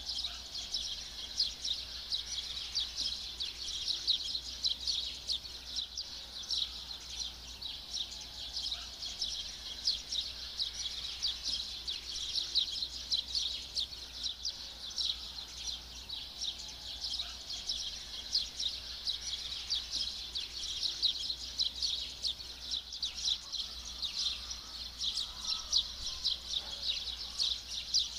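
Dense, steady chorus of birds chirping rapidly at a high pitch, over a faint low hum.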